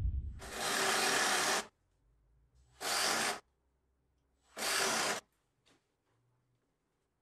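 Hand-held power tool run in three short bursts, a longer one of about a second and a half and then two of about half a second. Each starts and stops abruptly.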